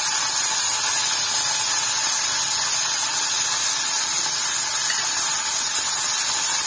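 Athalakkai (small wild bitter gourds) sizzling in hot oil in a kadai while being sautéed: a steady, even hiss.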